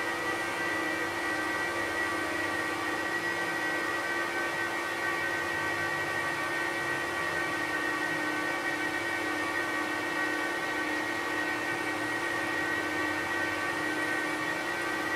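Apple Xserve server and Xserve RAID cooling fans running steadily: an even rush of air with a high whine and a lower hum over it.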